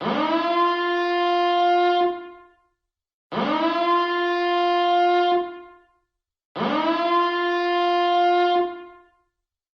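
Nuclear power plant reactor alarm siren sounding in repeated blasts, about one every three and a quarter seconds. Each blast swoops up in pitch, holds a steady horn-like tone for about a second and a half, then fades out. Three blasts are heard, with a fourth starting at the very end.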